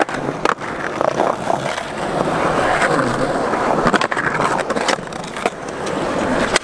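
Skateboard rolling on concrete: a steady rough rush from the wheels, broken several times by sharp clacks of the board against the ground.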